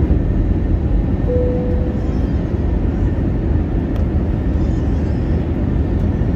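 Steady cabin noise of an Airbus A320neo descending on approach, heard from inside the cabin: its Pratt & Whitney PW1100G geared turbofans and the airflow make a constant low rumble. A brief single chime-like tone sounds a little over a second in.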